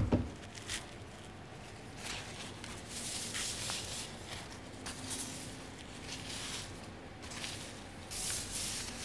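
Quiet kitchen handling noises: soft scrapes, rustles and light knocks, with a sharp knock right at the start.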